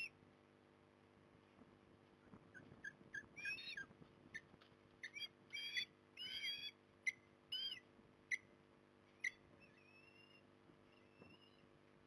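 Eastern osprey calling: a series of short, high-pitched, upward-sliding whistled chirps, densest in the middle, followed by a few fainter drawn-out whistles near the end.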